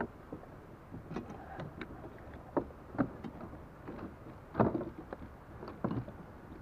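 Irregular knocks and clunks of gear being handled on a plastic sit-on-top sail kayak, the loudest about four and a half seconds in.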